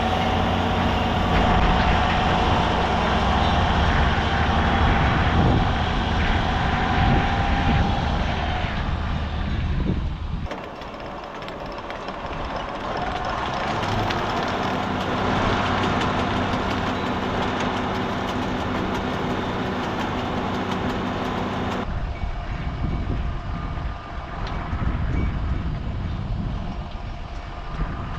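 Heavy diesel farm machinery running steadily during silage harvest, in three stretches that change suddenly about ten and twenty-two seconds in.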